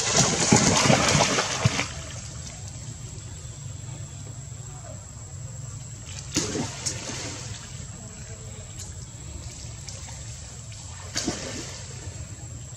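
Water splashing and sloshing as a monkey swims through a pool with her baby clinging on: a loud splashy stretch in the first two seconds, then two short splashes later on, over a steady low rumble.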